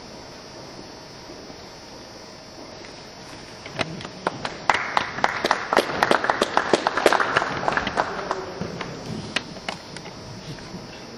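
A short round of hand clapping from a small group, starting about four seconds in, building quickly and dying away near the end over a steady low hiss.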